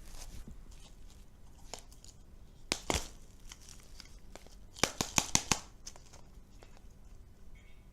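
Candy packaging being crinkled and torn open: a sharp crackle about three seconds in, then a quick run of about five crackles around five seconds in, over faint rustling.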